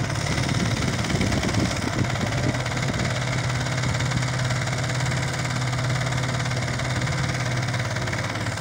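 Boat's outboard motor running at a steady pitch, an even hum with no change in speed.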